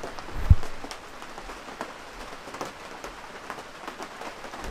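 Rain falling on a tent, with many scattered single drops ticking on it, and a low thump about half a second in.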